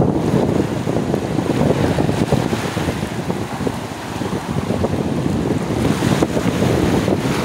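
Small sea waves washing up on a sandy beach, with steady wind buffeting the microphone.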